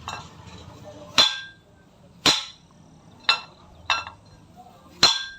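Hammer striking a ceiling fan's lower metal cover to knock it loose from the motor body: about six sharp blows, roughly a second apart, each with a short metallic ring.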